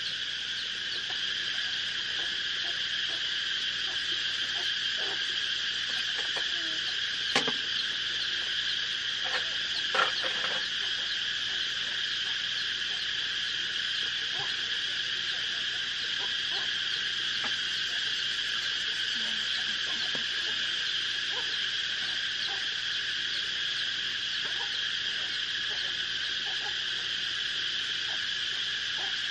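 Steady chorus of insects, a continuous high shrill hum in several pitch bands with no break. A sharp tap comes about seven seconds in and another around ten seconds.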